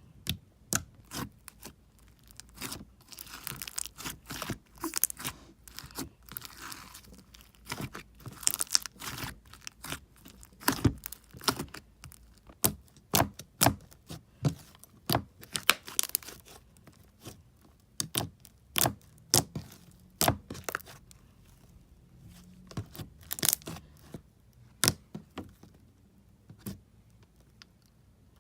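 Slime being poked, squeezed and stretched by hand, making irregular sharp pops and clicks, with stretches of crackling in between.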